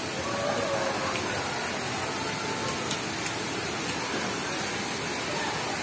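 Steady hiss of falling, splashing water, with faint distant voices in the first second.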